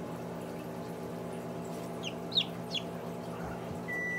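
Newly hatching domestic chicken chick peeping three times in quick succession, short high chirps that slide downward, the middle one loudest, over a steady hum.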